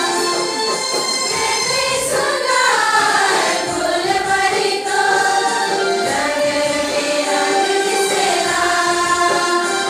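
A group of women's voices singing a church hymn together as a choir.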